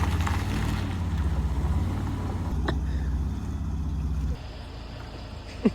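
A car running with a steady low rumble, which drops away abruptly about four seconds in.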